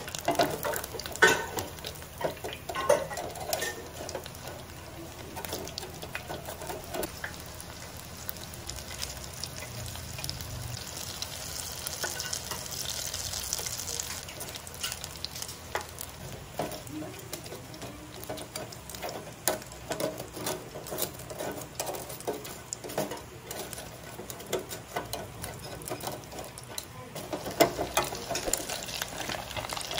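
Batter-coated mussels deep-frying in hot oil in a wire fryer basket, a steady sizzle, with metal tongs clicking and scraping against the basket as the pieces are turned.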